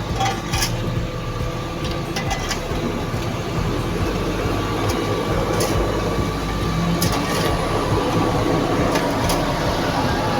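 Heavy road-paving machinery running steadily, a loud engine drone with a faint steady whine and occasional sharp clicks and knocks.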